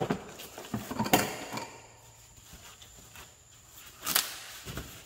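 Packaging rustling and knocking as parts are handled inside a cardboard box, in irregular bursts: a loud rustle about a second in, another about four seconds in, and a dull knock near the end.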